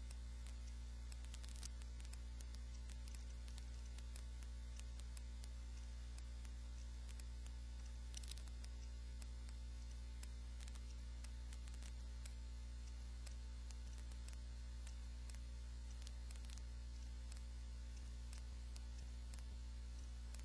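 Faint, steady electrical mains hum with a few higher hum tones above it, and scattered faint clicks.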